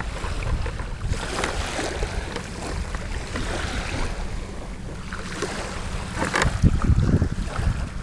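Wind rumbling on the microphone over a steady wash of water, with a few louder low thumps near the end.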